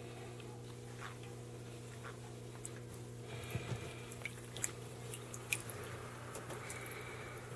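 Water dripping and small splashes around a sulcata tortoise in a shallow water bath in a wooden tub, over a steady low hum. The drips and clicks come more often from about halfway through, as the wet tortoise is lifted.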